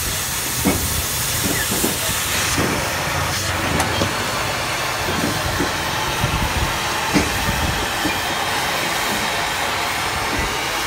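Oxy-fuel cutting torch hissing as its jet cuts through steel plate, the hiss dropping to a softer steady flame hiss about two and a half seconds in. Several short metallic clinks and knocks as cut steel pieces are handled with tongs.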